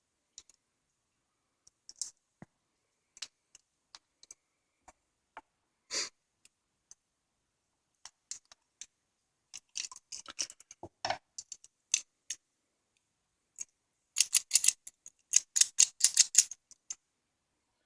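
Small steel parts of a bicycle coaster-brake hub's roller drive mechanism clicking and tapping as they are handled, with the retaining ring being fitted. Scattered single clicks, then a rapid run of clicks in the last few seconds.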